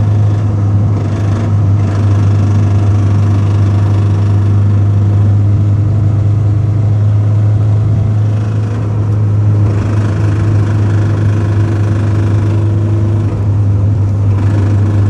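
Honda Civic running, with a steady low drone and a rattle.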